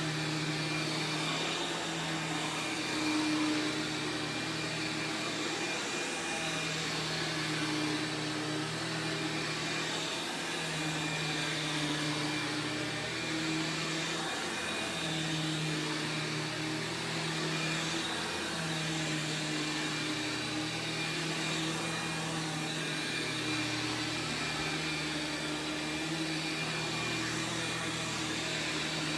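Sharp Twin Energy EC-12TWT4 upright vacuum running, its 12-amp two-stage motor giving a steady whine, with the low hum dipping and rising in pitch every few seconds.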